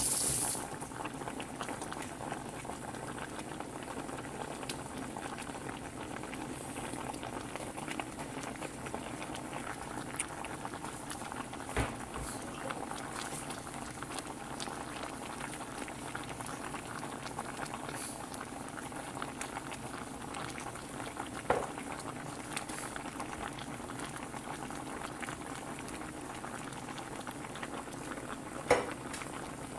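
Water at a rolling boil in a stainless steel pot of corn cob pieces, a steady bubbling crackle. Three sharper clicks stand out, about twelve seconds in, past the middle and near the end.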